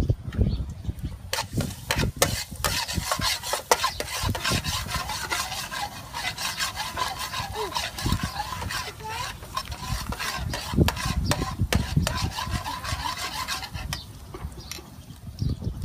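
Metal spatula scraping and stirring chopped garlic around an aluminium wok on a gas stove. A run of quick scraping strokes starts about a second in and stops near the end.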